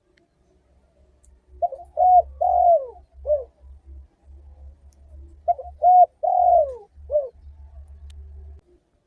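Spotted dove (tekukur) cooing: two phrases of about four coos each, a few seconds apart.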